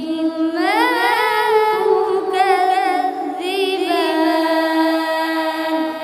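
A boy's voice reciting the Quran in a melodic chanting style (tilawat), holding long notes. Near the start it glides upward, it wavers in ornaments twice in the middle, and it ends on a long held tone.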